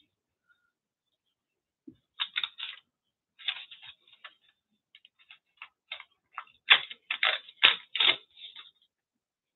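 Paper crinkled and torn by hand: a string of short crackly rustles, the loudest about seven to eight seconds in.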